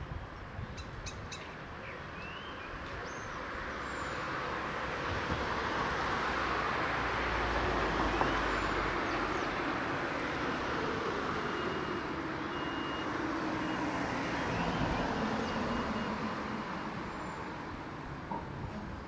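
Road traffic passing: cars and a van drive by, their tyre and engine noise swelling and fading twice, with a low hum falling in pitch as a vehicle goes past.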